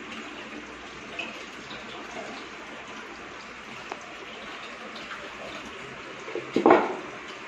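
Water trickling steadily through an aquarium top filter as it drains through the sponge and filter media back down into the tank, with one short, louder noise near the end.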